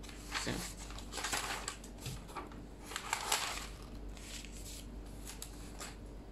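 Sheets of printed paper rustling as they are handled, in a few irregular bursts, the loudest about one and three seconds in.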